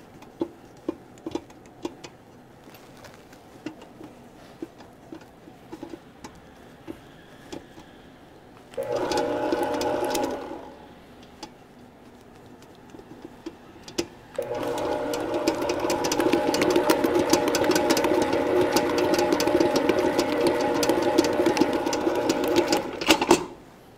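Planetary stand mixer's motor kneading bread dough. It runs briefly for under two seconds about nine seconds in, then steadily again from about fourteen seconds until it cuts off about a second before the end. In the pauses the mixer is stopped and there are small scattered clicks and knocks.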